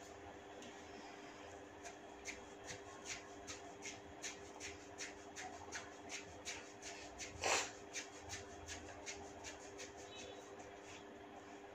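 Hair cracking: small locks of hair tugged sharply at the scalp, giving a run of short crackling snaps, about two or three a second. One louder, longer crackle comes a little past halfway.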